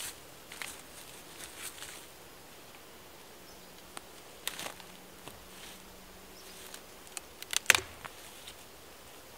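Dry twigs and leaf litter crackling in scattered bursts, with a sharp cluster of snaps a little before the end. An insect buzzes faintly in the middle.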